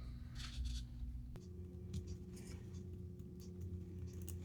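Faint scratching and light clicks of small parts and tools being handled at a workbench, over a steady low background hum that shifts abruptly about a second and a half in.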